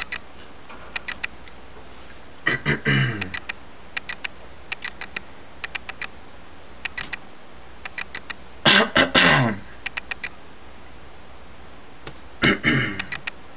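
A man coughing in three short bouts while swallowing a halved pill with water, a sign of the swallowing difficulty he has with multiple sclerosis. Between the coughs come many soft, quick clicks in twos and threes.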